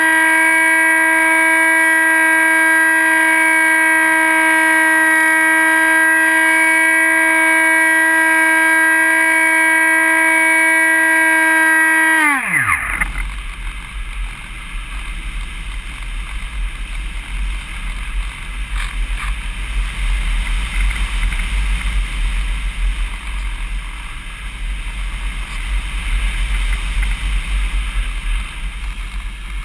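Dynam Hawk Sky RC plane's electric motor and propeller whining at a steady high pitch under power. About twelve seconds in the whine drops sharply in pitch and dies away as the motor is throttled off, leaving wind rushing over the onboard camera's microphone as the plane glides.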